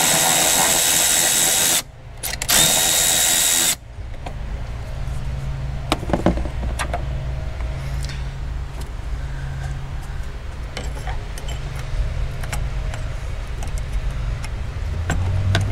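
Milwaukee cordless ratchet spinning a bolt down with a steady motor whir, in two runs: one of about two seconds, then after a brief pause a shorter one of about a second, then it stops. After that there are only a few light clicks and knocks over a low background hum.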